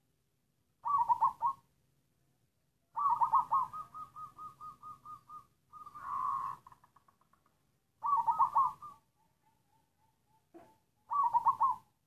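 Black zebra dove (perkutut) cooing in five short, broken phrases of rapid notes, with pauses between them. Two of the phrases trail off into a string of fading single notes. The cooing is choppy and halting, the kind that keepers call 'coughing' (batuk).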